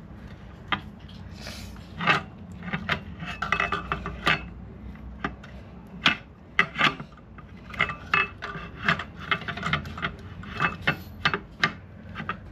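Metal clutch parts clinking, knocking and scraping against each other in irregular handling sounds as a car clutch is fitted together.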